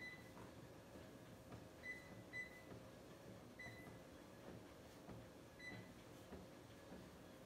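Faint short beeps from a Life Fitness treadmill's console as its buttons are pressed: five high beeps, two of them close together about two seconds in, over a low steady hum.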